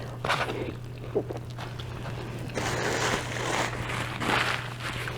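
Close-miked eating sounds from chewing a gyro with crunchy tomato and pickle. A few soft clicks come first, then a longer stretch of rustling and chewing noise through the middle, over a steady low electrical hum.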